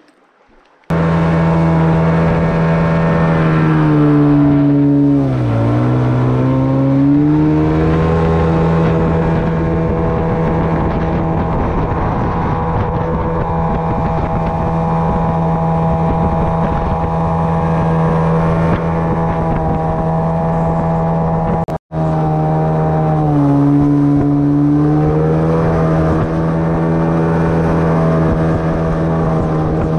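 Outboard motor with a water-jet drive pushing an inflatable boat at speed, starting about a second in; twice the engine note drops and climbs back up, and near the two-thirds mark the sound cuts out for an instant.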